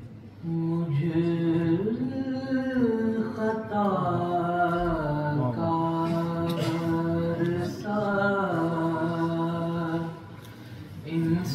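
A man's voice singing an Urdu naat, a devotional poem in praise of the Prophet. He holds long notes joined by ornamented slides in pitch, and breaks off briefly about ten seconds in before going on.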